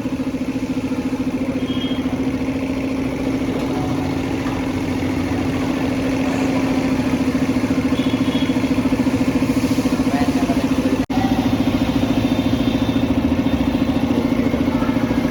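A motor or engine running steadily at an even pitch with a fast, fine pulse, briefly cutting out about eleven seconds in.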